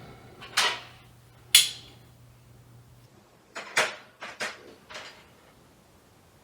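Metal hand tools clanking: about five sharp separate knocks, the loudest two in the first couple of seconds. A low steady hum runs underneath and stops about three seconds in.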